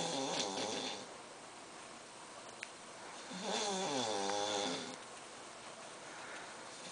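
Snoring in slow, regular breaths: one snore fading out about a second in, a full snore of about a second and a half in the middle, and the next one starting at the very end.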